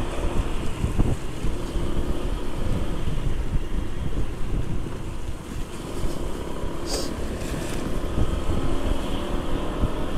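Wind buffeting the microphone over the steady hum of a Honda PCX scooter's single-cylinder engine and its tyres on wet asphalt, riding at low city speed. A short hiss comes about seven seconds in.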